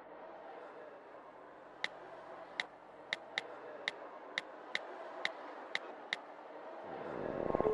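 Smartphone touchscreen keypad clicks: about ten short, sharp ticks at uneven intervals over a low steady background hum. Near the end a rising sound swells up.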